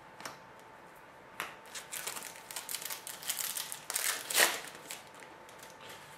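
Foil wrapper of a trading-card pack crinkling and rustling in a run of short bursts as it is handled, loudest about four and a half seconds in.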